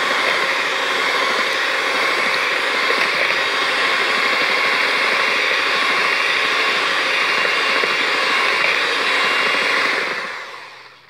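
Elekta electric hand mixer running steadily, its beaters whirring through a runny egg, sugar and oil mixture in a bowl. It winds down and stops about ten seconds in.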